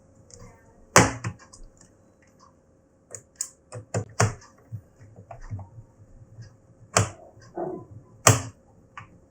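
Irregular sharp clicks and taps of a laptop's plastic bottom cover and a small screwdriver being handled while a few screws are put in, with a faint steady electrical hum underneath.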